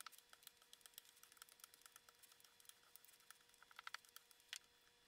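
Near silence with faint, quick, irregular clicks and taps from dough being pressed by hand and rolled out with a wooden rolling pin, sped up. The clicks are most frequent a little before four seconds in, while the rolling pin is in use.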